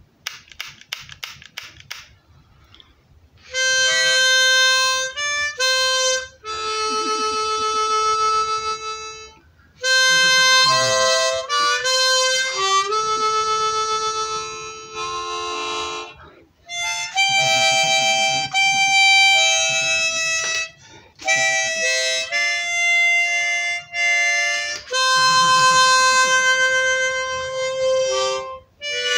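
Chromatic harmonica playing a slow melody in phrases of held notes and chords, with short breaks between phrases. A burst of rapid clicks comes in the first two seconds, before the playing starts.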